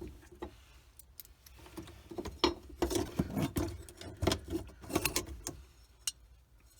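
Small metal screws clinking and rattling as they are pulled from the fuel pump's retaining ring: a run of short irregular clicks in the middle, and one more near the end.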